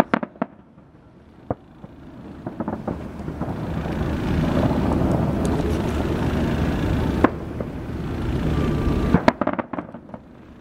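Aerial firework shells bursting: a few sharp cracks at the start, another about a second and a half in, a single loud bang around seven seconds, and a quick cluster of bangs near the end. Between them runs a rushing noise that swells and fades.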